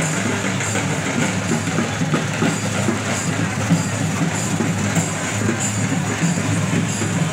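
Loud music playing over a dense, unbroken wash of sound.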